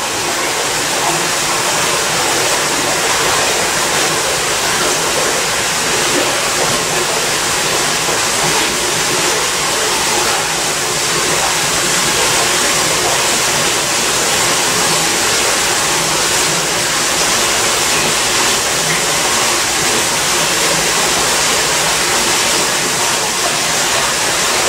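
Water gushing steadily from a 2-inch pump's delivery hose into a flood test tank as it fills, growing a little louder over the first two seconds.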